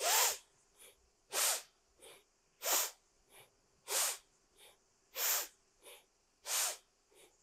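A person breathing forcefully and rhythmically in time with yoga arm movements: six sharp, hissing breaths about 1.3 seconds apart, each followed by a much fainter breath.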